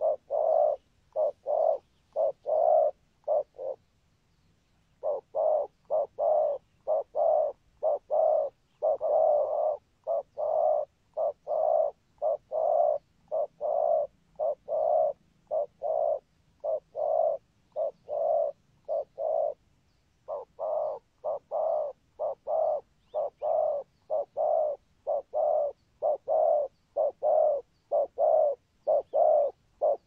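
Spotted dove cooing: a long run of short, low coos at about two a second, broken by brief pauses about four seconds in and again about twenty seconds in.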